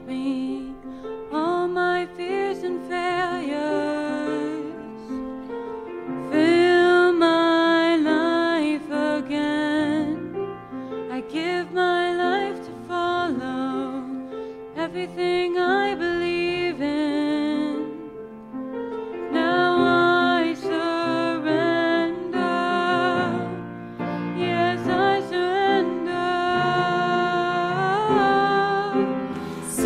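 Worship song with piano accompaniment and a woman singing the melody in phrases, with short breaths between lines.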